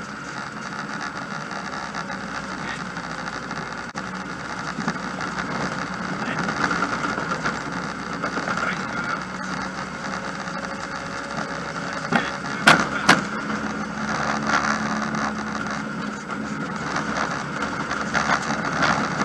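Engine and road noise of a stripped, roll-caged rally car heard from inside its bare cabin as it drives, a steady rumble and rattle. Two sharp knocks come close together about two-thirds of the way through.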